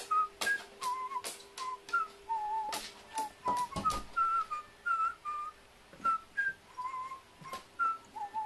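Background music: a whistled melody of short, wavering notes over light clicking percussion and a steady held tone.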